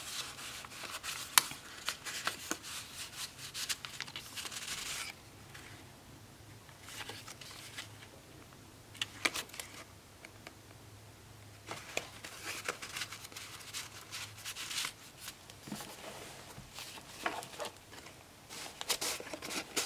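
Paper pages, tags and flip-outs of a handmade junk journal rustling and crinkling as they are unfolded and turned by hand, with scattered small taps. The handling is busiest in the first few seconds, eases off for a couple of seconds, then goes on in short bursts.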